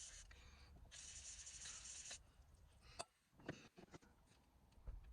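Aerosol can of penetrating spray hissing in two bursts, the second about a second long, soaking rusty suspension drop link bolts. A few light clicks and knocks follow.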